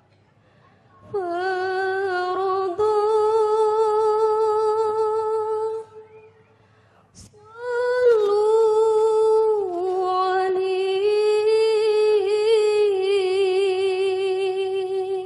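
A solo voice sings long, drawn-out notes without accompaniment, the slow opening vocal line of a hadroh/qasidah song. It sings in two long phrases, with a short break about six seconds in.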